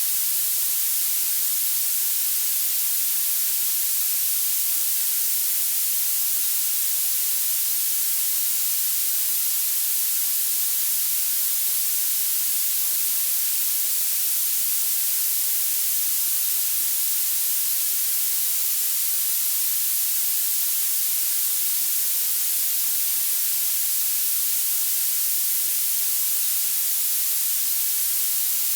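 Violet (purple) noise: a steady, high-pitched hiss that is strongest in the highest frequencies and has almost no low end.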